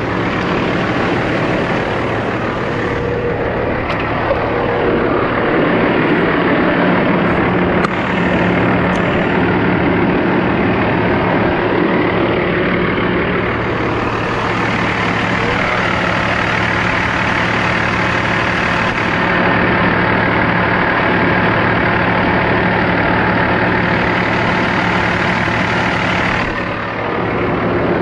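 Heavy diesel engine of a Kenworth semi truck running with no mufflers, idling steadily: a loud, even exhaust note with a constant low drone.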